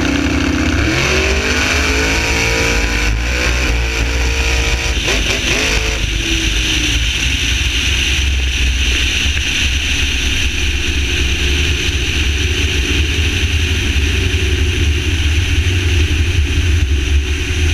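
1987 Chevrolet Camaro drag car's engine at full throttle down the strip from a standing launch, its pitch climbing and dropping back twice at the gear changes. About six seconds in the engine lets off, leaving a steady rush of wind on the hood-mounted microphone over a low rumble as the engine winds down.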